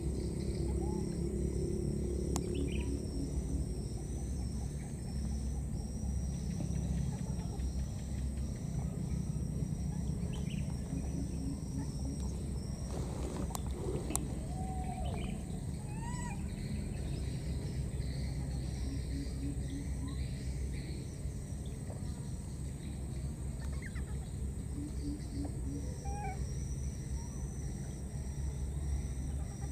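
Outdoor ambience of insects trilling steadily, with a few short bird chirps and one click about halfway, over a low steady rumble.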